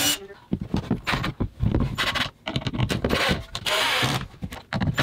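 Ryobi cordless drill driving screws into a plywood shelf in short bursts, with knocks and handling noise in between.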